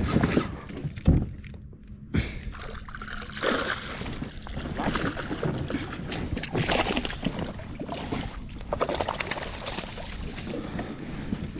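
Water sloshing and splashing around a small boat, irregular and noisy over a low steady rumble, with a couple of sharp knocks in the first second.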